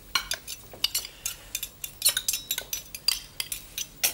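Metal spoon and forks clinking and scraping against ceramic plates and a bowl as sauce is spooned out: many quick, irregular clinks.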